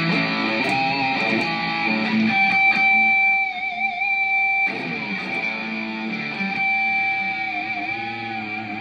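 Electric guitar played through a Zoom G5n multi-effects processor: a lead line of held notes with vibrato and bends.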